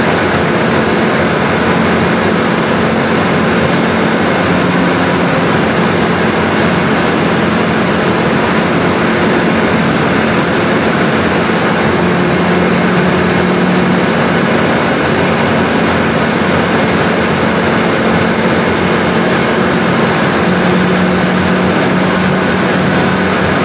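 Steady road noise inside a car cruising on a motorway: engine drone with tyre and wind noise. The engine hum grows stronger a couple of times, about halfway through and near the end.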